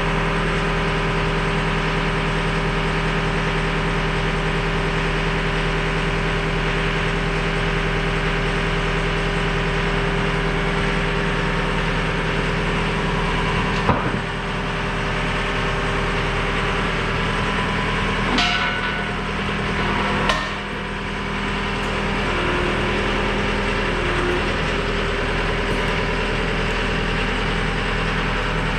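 Skid steer engine idling steadily, with a few sharp knocks about halfway through.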